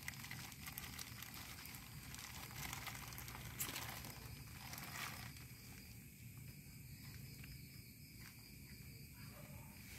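Faint rustling and crinkling of dry leaves and a plastic bag being handled, with a few light clicks over a steady faint background noise.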